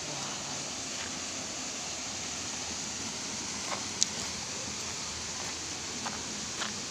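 Steady rushing of a waterfall, an even hiss of falling water, with a few short sharp clicks, the loudest about four seconds in.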